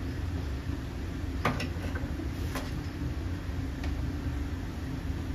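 Steady low kitchen hum with a faint held tone underneath, broken by a few light clicks about one and a half, two and a half and nearly four seconds in.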